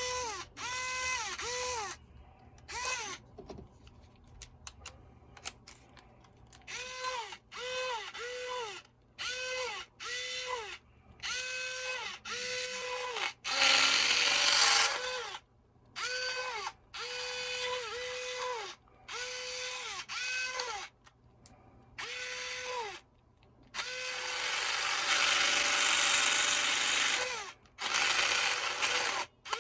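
VESSEL 電ドラボール electric ball-grip screwdriver switched on and off over and over: its small motor whines up, holds a steady pitch briefly and winds down, about fifteen times, with clicking in between. Twice it runs longer, louder and rougher, for a second or two and then about three seconds.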